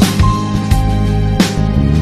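Background music: an instrumental stretch of a pop song with a steady drum beat, bass and guitar.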